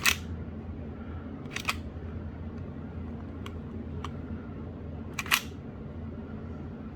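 A few sharp metallic clicks from handling a Tokyo Marui Series 70 gas blowback airsoft 1911 pistol: one at the start, a doubled click about a second and a half in and another about five seconds in, with fainter ticks between. A steady low hum sits underneath.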